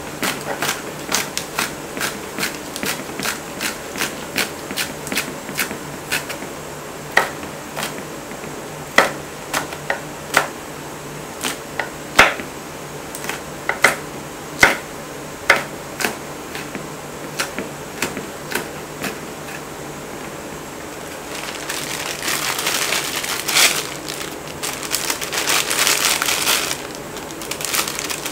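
Kitchen knife chopping green chili peppers on a wooden cutting board: quick, even knocks at first, then slower single cuts. After about twenty seconds the chopping stops, and a hiss of broth boiling in a pot-lid pan comes in and grows louder.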